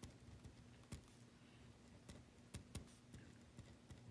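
Faint, irregular ticks and scratches of a pen writing on lined paper, over a faint steady hum.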